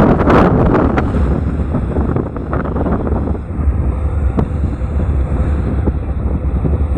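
Wind buffeting the microphone over the steady low rumble of a boat's engine, with the wind noise heaviest in the first second.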